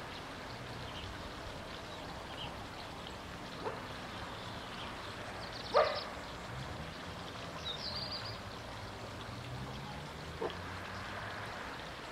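A few short animal calls over a steady outdoor background, the loudest a sharp call about six seconds in, with a brief high chirp about two seconds later and fainter calls before and after.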